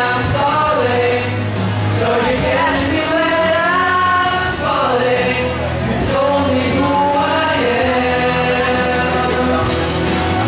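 Young men singing a slow melodic song through handheld microphones over instrumental accompaniment, the sung notes held and gliding between phrases.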